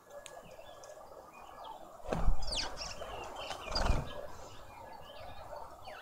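Small birds chirping and calling in short, sweeping notes around a garden bird feeder, with two loud thumps about two and four seconds in.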